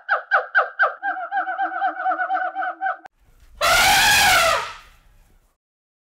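A fast run of short, evenly repeated synthetic-sounding notes, a cartoon sound effect, lasting about three seconds. After a brief gap comes a loud, harsh scream about a second long that rises and falls in pitch, given as a gorilla's call.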